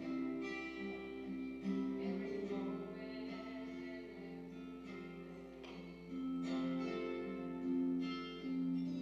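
A slow song played on acoustic guitar, with a voice singing long held notes.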